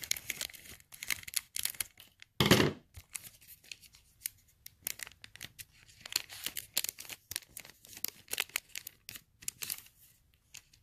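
Clear plastic trading-card pack being cut open with scissors and handled: rapid crinkles and small clicks throughout, with one louder burst lasting under half a second about two and a half seconds in.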